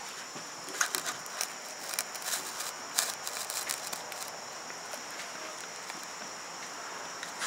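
Insects trilling steadily in the background, a constant high-pitched sound, with a few scattered light clicks and taps in the first few seconds.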